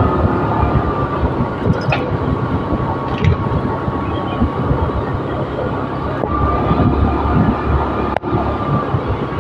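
A motorbike riding along a road: a steady low engine rumble mixed with wind rush on the microphone, with a thin steady whine above it and a couple of light clicks about two and three seconds in.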